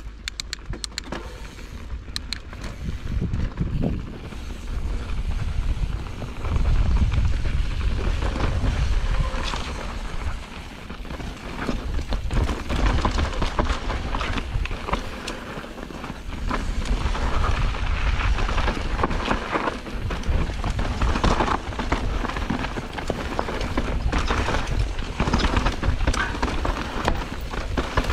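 Mountain bike rolling fast down a dirt trail, with wind buffeting the microphone in low rumbling gusts that grow louder about six seconds in, over tyre hiss and frequent clicks and rattles from the bike.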